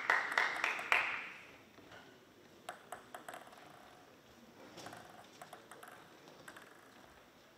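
Hand claps, about three a second, ending about a second in. Then a few light, quick ticks of a table tennis ball bouncing, as the server readies to serve.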